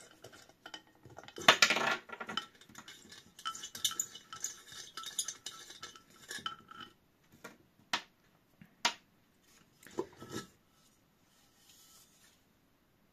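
Brass nuts being turned off by hand and the metal bottom cover of a thermoelectric generator pot worked loose, giving metal scraping and clinking, loudest about a second and a half in. Later come two sharp clicks as the nuts are set down and a clatter as the cover comes away.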